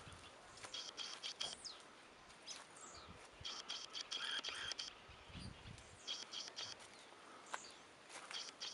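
Faint outdoor ambience with short, repeated bursts of high chirping that come in groups a few seconds apart.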